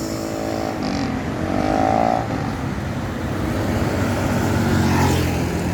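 Tour bus engine running as it comes along the road, with traffic noise; the engine note swells about four seconds in.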